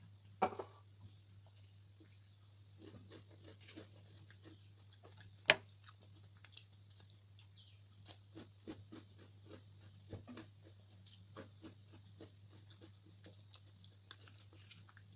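Crunchy biting and chewing of chocolate chip cookies: many small irregular crackles, with one sharp loud click about five seconds in. A plastic jar is set down on the counter just after the start, and a steady low hum runs underneath.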